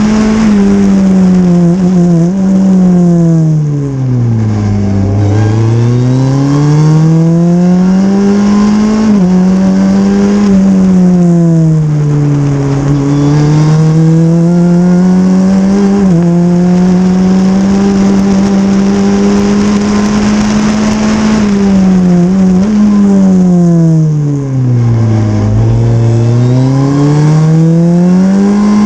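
Super FJ formula car's Honda 1.5-litre four-cylinder engine at racing speed, mostly held at a steady high pitch. Three times the revs fall away and climb back up, as the car brakes for a corner and accelerates out, with small sudden steps in pitch at gear changes.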